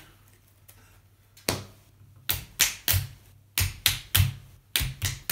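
Hands smacking in time as two players count out rock, paper, scissors: sharp slaps in groups of three, about three a second, round after round.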